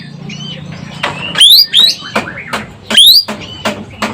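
Ekek keling bird calling: a series of sharp, loud calls, each sweeping up in pitch, the loudest about one and a half seconds and three seconds in, with fainter calls between.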